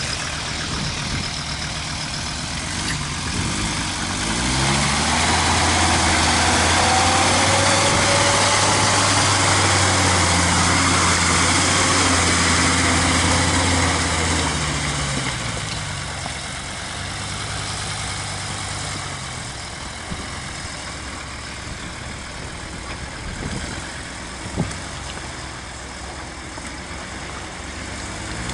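Off-road vehicle's engine revving up about four seconds in, held high and loud for about ten seconds, then easing off to a lower, steady running. A single sharp knock comes near the end.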